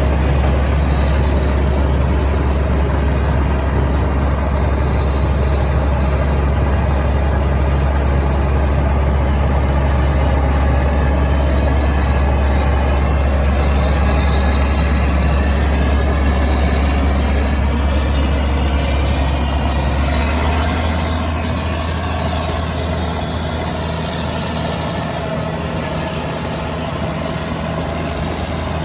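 Case IH 2188 Axial-Flow combine's diesel engine running steadily. About twenty seconds in, its note drops and it gets a little quieter as the engine slows.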